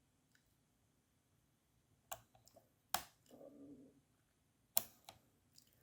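Camcorder's plastic zoom rocker and body clicking as they are pressed and handled: four scattered sharp clicks.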